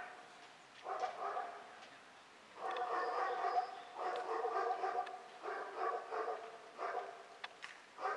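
A dog barking, a series of drawn-out barks of about half a second to a second each with short pauses between them.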